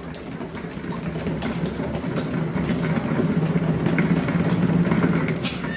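Cat exercise wheel spinning under a running cat: a steady rolling rumble that builds over the first few seconds and eases off near the end, with a few light ticks.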